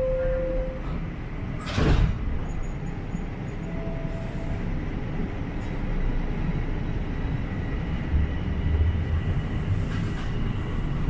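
Toronto subway train: the held last note of the door-closing chime ends within the first second, the doors shut with a single knock about two seconds in, then the car runs with a steady rolling rumble as it pulls out of the station, growing heavier around eight seconds in.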